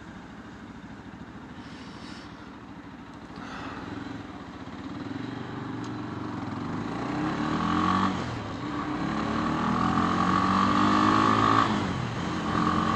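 Sport motorcycle engine pulling away from a stop and accelerating up through the gears: the revs climb, drop at a gear change about eight seconds in, climb again and drop at another shift near the end.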